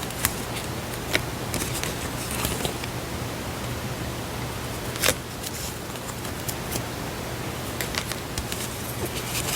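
Sparse small clicks and rustles from handling stationery and paper goods, over a steady hiss and low hum. The loudest click comes about halfway through, with a few more quick ones near the end.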